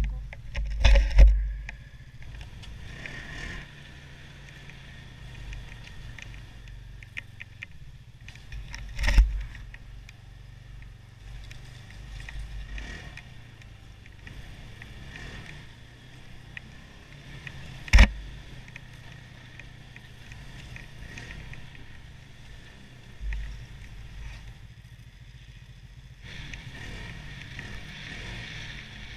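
Snowmobile engine running steadily while riding a snow trail, heard from the machine itself, with a rushing noise that grows louder near the end. Several hard thumps break through, at about a second in, around nine seconds, sharply at about eighteen seconds and more softly near twenty-three seconds.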